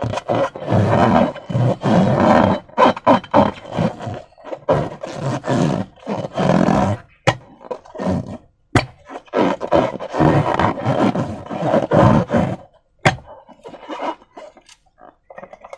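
Slime and rubber balloons being squeezed and worked by hand: irregular squelching and rubbing, with a few sharp clicks about 7, 9 and 13 seconds in.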